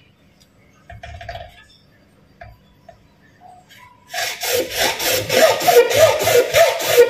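Hand sawing: a few faint knocks and a short scrape, then from about four seconds in a fast run of back-and-forth saw strokes, each with a rising and falling squeal.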